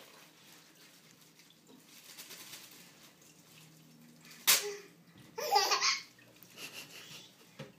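A plastic air-pillow packing cushion bursts with one sharp, loud pop as it is torn, about halfway through, and a baby's squealing laugh follows a second later.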